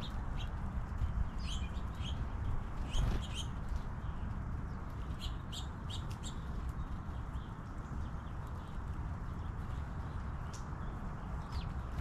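Small songbirds chirping in short, high calls that come in scattered clusters, over a steady low rumble. There is a single soft thump about three seconds in.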